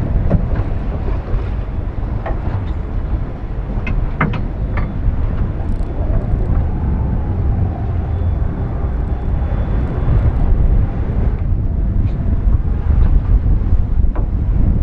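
Strong wind buffeting the microphone as a steady low rumble, over rough, choppy sea around the boat. A few sharp knocks sound in the first five seconds.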